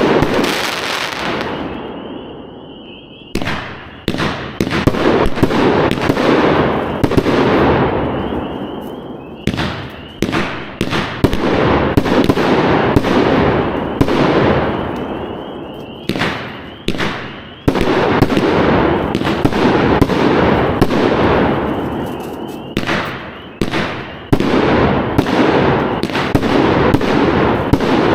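Fisherman 'White Noise' 26-shot 500 g angled firework cake firing: a rapid string of sharp shots and loud breaks, each volley trailing off in a long, fading wash of noise before the next set hits.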